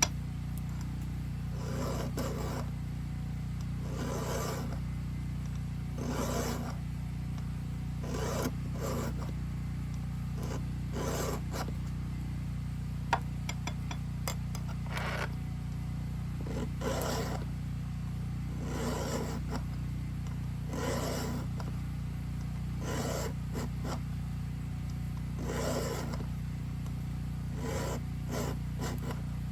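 Hand file rasping across the cutter teeth of a chainsaw chain, sharpening it: a repeated rasping stroke roughly every two seconds.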